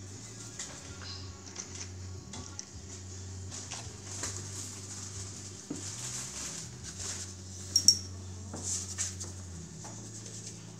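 A paintbrush scratching and dabbing on paper in short, quick strokes, with light taps and a few sharp clinks, the loudest a little after three-quarters of the way through.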